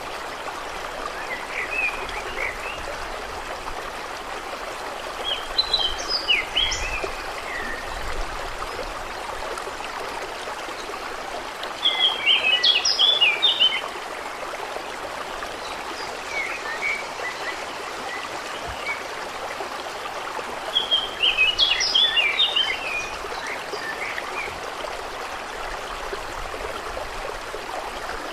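Steady water noise with a songbird singing three short phrases of quick chirps, about every eight seconds, with a few softer chirps between.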